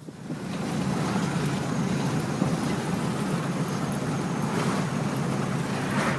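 A vehicle on the move: steady engine and road noise that builds up over the first second and then holds even.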